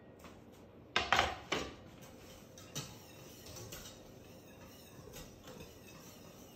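Kitchen utensil clatter: a quick run of sharp knocks about a second in as diced onion is tipped off a cutting board into a saucepan and the board and knife are set down, then one more knock. After that comes faint scraping and tapping of a spoon stirring the onion in melted butter.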